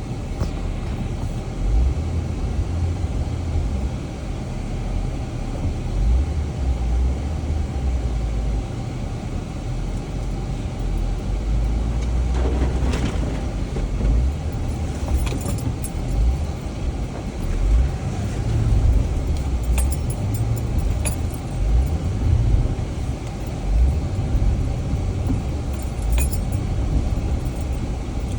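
A Jeep driving slowly over a rough, rutted dirt trail: a low engine and drivetrain rumble that swells and dips as it jolts, with light rattles and jangling clinks, mostly in the second half.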